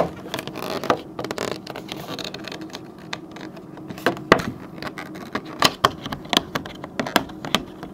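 Stiff clear plastic packaging scraping and clicking as fingers work a trading card out of a tight plastic holder. The clicks come at irregular moments, and the sharpest is about four seconds in.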